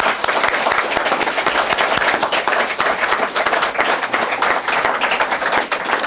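Audience applauding: many people clapping at once, steady and dense throughout.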